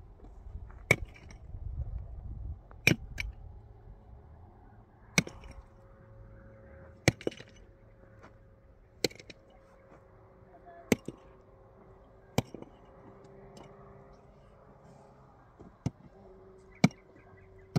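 A digging tool striking stony earth, one sharp blow about every two seconds.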